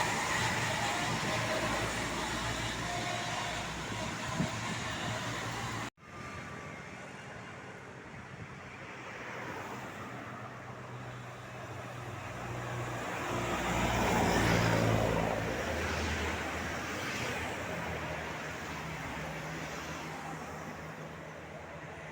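Roadside traffic noise with engines running. A vehicle passes, swelling to its loudest about two-thirds of the way through and fading, after the sound cuts out abruptly about six seconds in.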